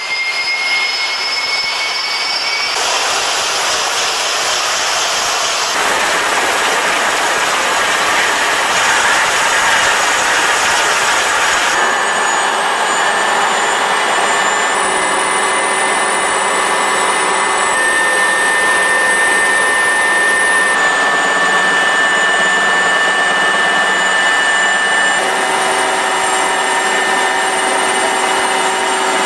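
Aérospatiale AS 332 C1 Super Puma helicopter's twin turbine engines and rotors running: a loud, steady turbine whine with several high steady tones. Its tone shifts abruptly every few seconds.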